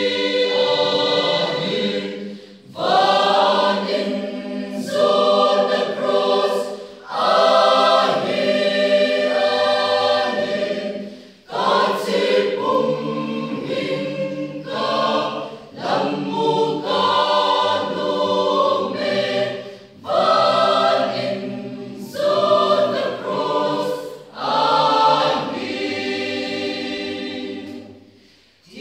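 Mixed choir of male and female voices singing unaccompanied in parts, in phrases of a few seconds separated by short breaths.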